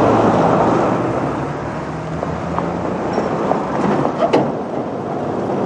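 Commer van's engine idling, with a couple of light knocks about four seconds in.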